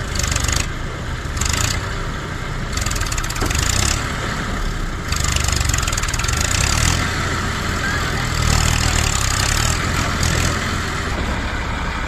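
Heavy diesel engine running loud and steady under working load, with a rough hiss above it that comes and goes every second or so.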